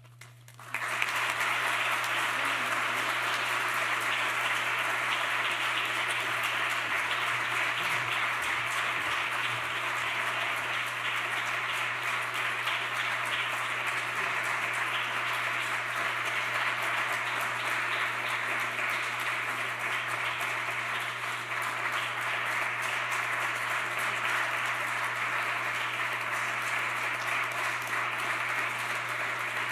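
Audience applause that breaks out suddenly about a second in and goes on steadily as a dense, even clapping.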